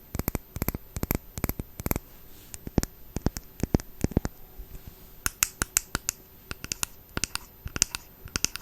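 Quick, irregular fingernail taps and clicks on a small glass perfume bottle and its packaging, coming in short runs.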